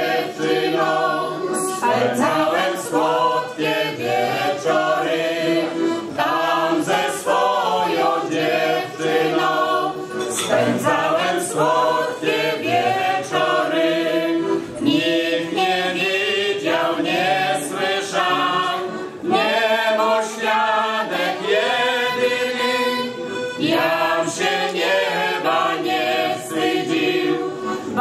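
Mixed choir of men's and women's voices singing a Polish folk song together, held sung notes moving from phrase to phrase.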